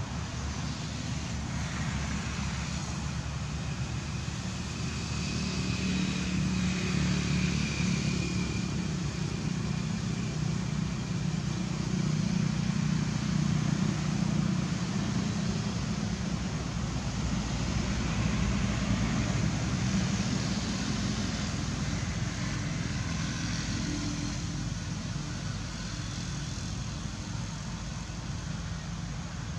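Low, steady rumble of a motor vehicle engine, swelling through the middle and easing off near the end.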